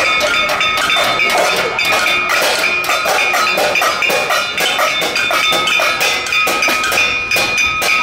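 Several people banging metal pot lids and cooking pots in a noise protest: a dense, irregular clatter of strikes, the lids ringing on steady metallic tones.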